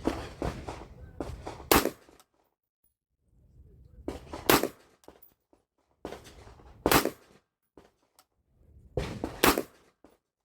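Four short runs of metallic clicks and handling noise from an AR-15 rifle, each ending in one sharp snap, about every two and a half seconds.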